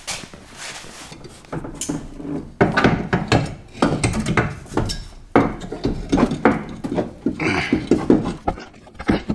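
Irregular clunks, knocks and scraping of a new rear strut-and-coil-spring assembly being jimmied up into place in the rear wheel well of a 2008 Toyota Highlander. The knocking starts about a second and a half in and comes thickest around the middle.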